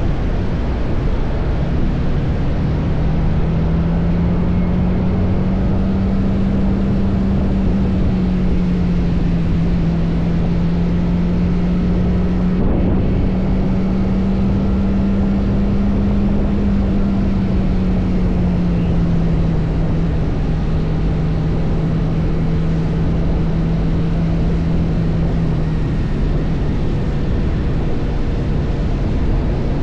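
TVS Apache RR310 with its stock exhaust, the 312 cc single-cylinder engine running at a steady cruise, its note drifting slowly up and down a little. A steady rushing noise of wind and road runs underneath.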